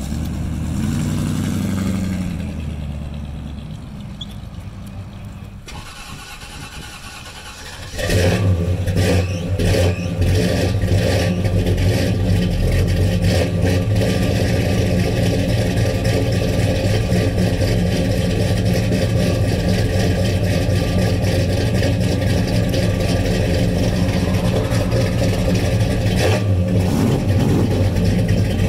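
Pontiac GTO's V8 engine starting with a sudden loud burst about eight seconds in, then idling steadily at a loud, even rumble. Before that, another car's engine rises briefly in pitch and fades away.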